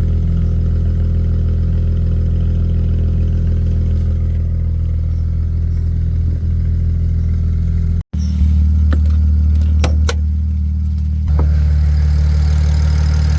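BMW 135i's turbocharged straight-six idling steadily on a cold start. The sound drops out for an instant about eight seconds in, then the idle carries on with a few sharp clicks.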